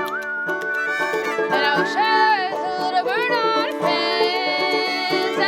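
Old-time folk instrumental break: fiddle playing the melody with sliding notes over banjo picking and the clicking of spoons.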